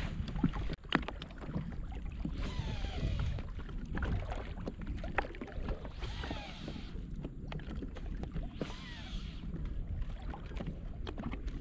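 Water splashing around a small boat as it moves, swelling three times about three seconds apart, with scattered knocks and a low rumble of wind on the microphone.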